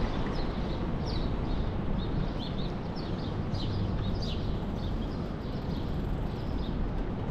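Small birds chirping in quick short notes over a steady low rumble of wind and rolling noise from a moving bicycle.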